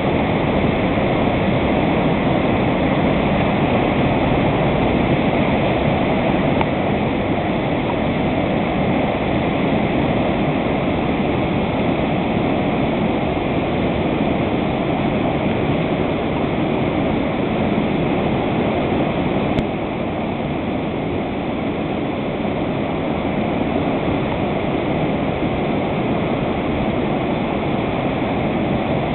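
Floodwater pouring over a river weir in a steady, loud rush.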